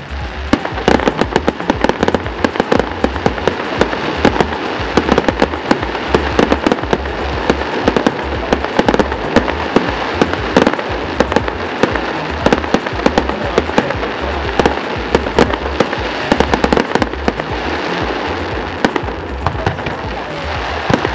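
Fireworks display going off in rapid succession: many sharp bangs and dense crackling overlapping, loud and continuous.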